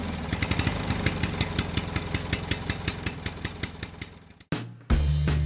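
Small engine running with a rapid, even firing beat that fades away over about four seconds; music with steady low notes starts just before the end.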